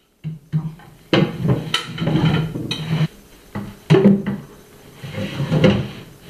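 Wooden cabinet drawer sliding against its wooden runners and being handled, wood rubbing on wood with several knocks.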